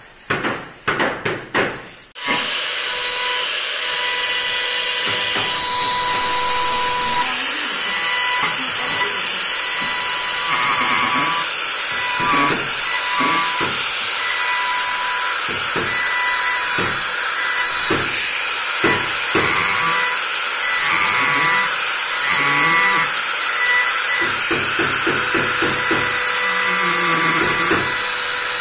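Compact trim router (Makita RT0700C) running and cutting into a wooden leg blank, a steady high whine with the cutting noise rising and falling as the bit is guided along the carving lines. A few sharp knocks in the first two seconds before the router starts.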